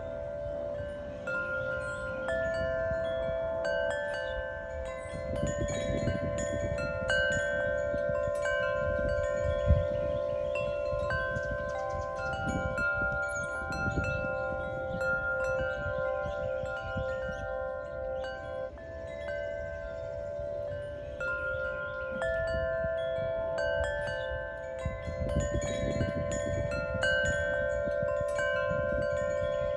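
Wind chimes ringing, with tones of several pitches struck at irregular moments and each ringing on for a few seconds, over a low rumble that swells now and then.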